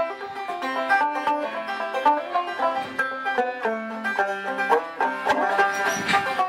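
Open-back banjo played solo: a quick tune of plucked single notes in steady succession. A short rush of noise cuts in near the end.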